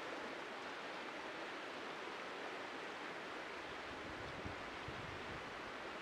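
Shallow mountain river flowing over a stony bed: a soft, steady rush of water with no change.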